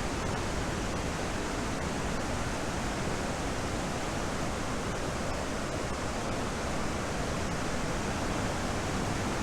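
Waterfall in flood, a raging torrent of water pouring over rock ledges, its roar a steady, even rush. Normally only a trickle, it is swollen by hurricane rainfall.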